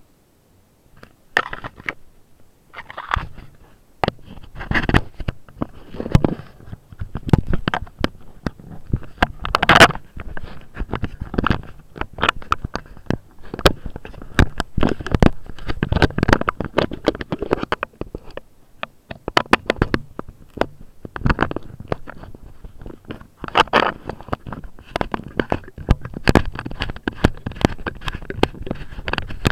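Handling noise on an action camera: irregular scraping and rubbing against its microphone, with many sharp clicks and knocks as it is handled and carried.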